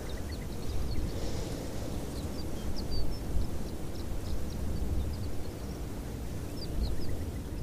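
Outdoor ambience: an uneven low rumble of wind on the microphone, with faint, short, high-pitched chirps scattered irregularly throughout.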